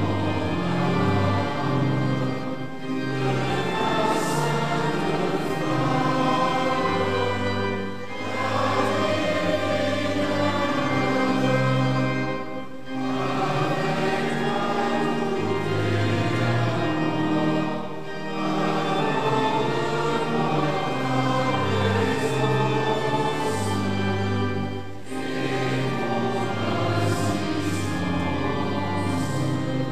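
Congregation singing a hymn together in line-by-line phrases with brief pauses between lines, accompanied by pipe organ holding sustained chords.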